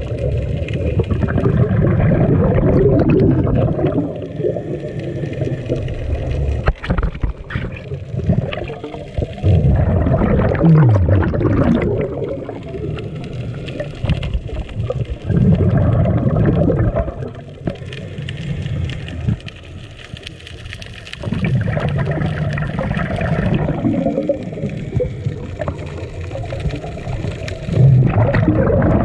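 Scuba regulator exhaust bubbles gurgling past an underwater camera housing as divers breathe out: bursts of two to three seconds about every six seconds, with quieter breaks between breaths.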